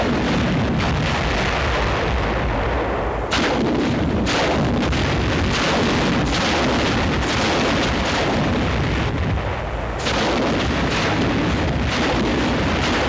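Rocket explosions: 7.2-inch T-37 demolition rockets bursting against obstacles, as a continuous heavy rumble of blasts. Sharp fresh blasts come about three seconds in, a second later, and again about ten seconds in.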